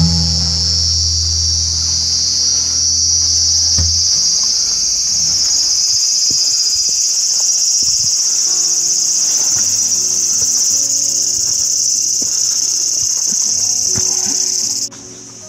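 A loud, steady chorus of summer cicadas buzzing, cutting off abruptly near the end. Soft acoustic guitar music plays underneath.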